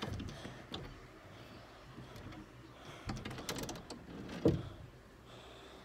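Scattered light knocks and rustling from movement close to the microphone, with one louder thump about four and a half seconds in.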